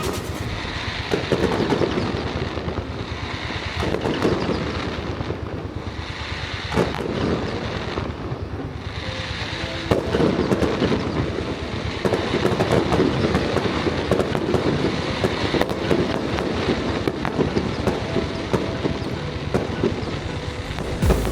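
Fireworks display at full barrage: rapid, overlapping bursts and continuous crackling of shells exploding, with no let-up.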